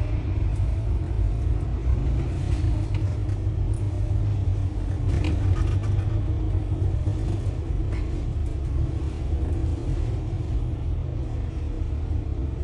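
Steady engine and road rumble heard from inside a moving bus, with a few short knocks or rattles from the cabin.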